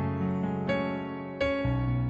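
Instrumental music: keyboard or piano chords over a held bass, with a new chord struck about every three quarters of a second.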